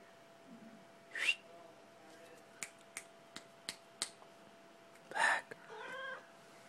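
A person calling a cat with five sharp clicks, about three a second, followed by a loud short breathy burst and a brief wavering call near the end.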